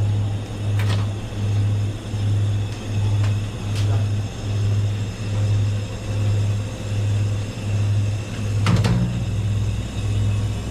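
A low, steady hum that pulses about twice a second, with a few light clicks, the clearest near the end.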